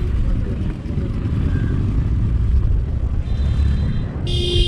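Low, uneven rumble of a motorcycle ride: engine and wind buffeting the microphone on the moving bike. A short, high beep, like a vehicle horn, sounds near the end.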